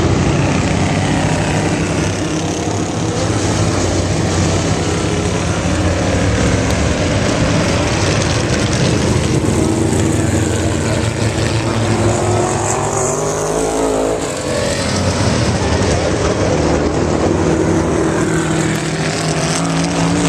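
Several vintage sprint cars and midgets lapping a dirt oval together, their engines running hard at racing speed with overlapping notes that rise and fall as the cars go round. One passes close about two-thirds of the way through, its pitch sweeping down as it goes by.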